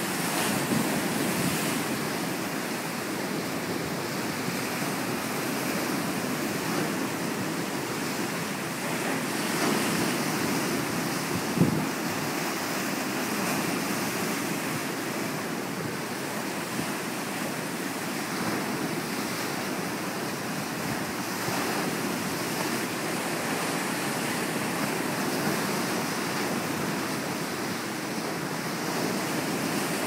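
Wind-driven waves breaking and washing over a rocky shore: a steady rush of surf, with wind buffeting the microphone. A short thump stands out about twelve seconds in.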